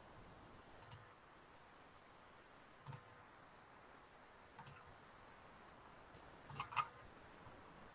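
Faint computer mouse clicks: single clicks about every two seconds, then two in quick succession near the end, over a low steady hiss.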